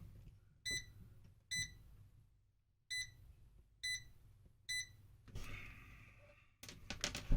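Digital multimeter in continuity mode giving five short beeps about a second apart, each beep signalling a closed circuit across the probes. A short rustle of handling follows near the end.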